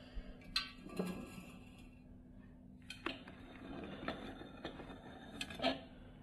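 Faint scattered knocks and light clinks of glassware on a wooden serving board, with soft rustling in between, over a steady low hum.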